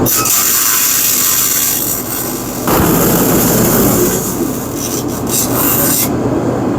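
Harsh, continuous hissing and scraping from metalwork on a steel car frame. It starts suddenly and stops abruptly about six seconds in.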